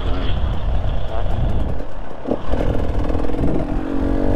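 Dirt bike engine running over a dense low rumble. A little over two seconds in there is a short knock, and after it the engine holds a steady note.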